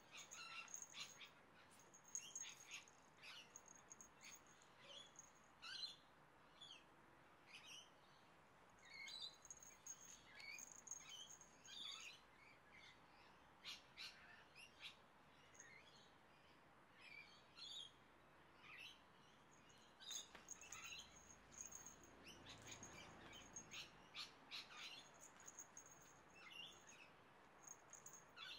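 A small jingle bell on a cat's harness tinkling in quick, irregular clusters as the cat rolls and squirms on the ground.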